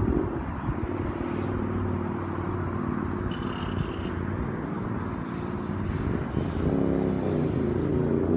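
Naza Blade (Hyosung) V-twin motorcycle engine running steadily, with a brief high tone about three seconds in. Music comes in near the end.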